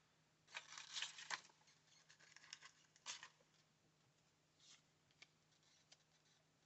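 Faint rustling and handling of craft supplies: a few soft brushing sounds about half a second to a second and a half in, another at about three seconds, then small ticks.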